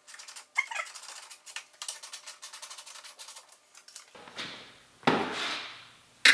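Ratchet wrench clicking rapidly and fairly evenly for a few seconds. Near the end there are two louder, sudden noisy sounds, each trailing off over about a second.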